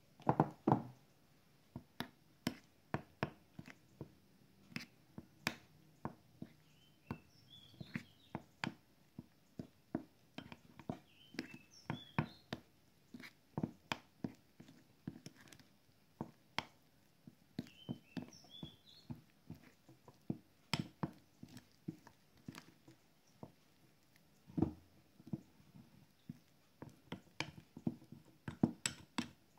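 A metal spoon stirring curry powder and sauces into a thick paste in a small glass bowl, with irregular clicks and taps of the spoon against the glass, about one or two a second. A heavier thump comes about half a second in.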